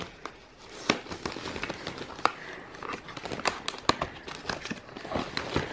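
A small cardboard box being opened and handled among plastic mailer packaging: irregular sharp crackles and crinkles of card and plastic, a few louder snaps among them.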